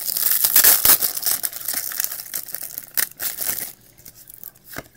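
Trading-card pack wrapper being torn open and crinkled for about three and a half seconds, then going quieter with a few light clicks of cards being handled.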